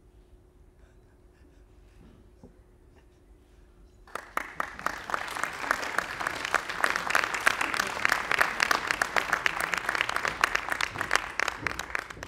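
An audience applauding. The clapping starts suddenly about four seconds in, builds to a full, dense round, and stops near the end.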